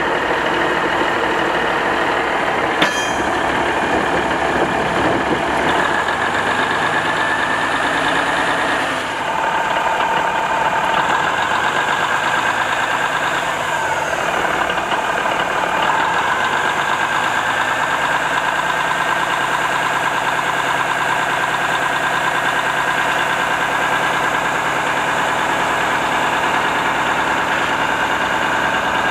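Budd RDC's Cummins NTA-855 diesel engine running steadily, its engine note shifting about nine seconds in and again around fourteen to sixteen seconds. A single sharp click comes about three seconds in.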